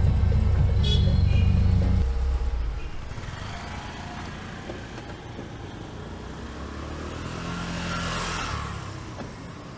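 A vehicle engine running with a steady low hum that cuts off about two seconds in. Then quieter traffic noise, with a vehicle swelling past in a rising and falling rush near the end.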